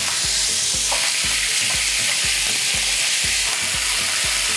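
Cubes of beef sizzling steadily in hot vegetable oil in a frying pan as they sear to a crust, stirred with a wooden spatula.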